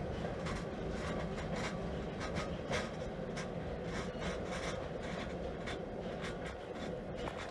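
Short freight train rolling away along the track: a steady low rumble with frequent light clicks from the wheels on the rails.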